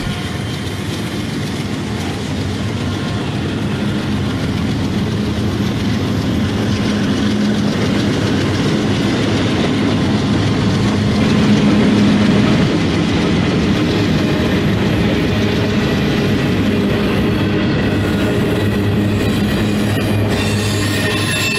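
Diesel freight train running on the grade: a steady locomotive engine hum over rail and wheel noise. It grows louder over the first dozen seconds, then holds steady.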